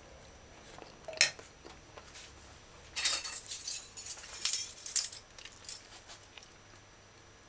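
Metal fork clinking and scraping on a ceramic dinner plate. A single sharp clink comes about a second in, then a quick run of clinks and scrapes for about two seconds in the middle.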